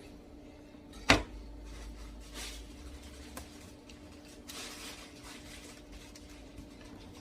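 Kitchen handling noise during fish preparation: one sharp knock about a second in, the loudest sound, then softer scraping and rustling, over a steady low hum.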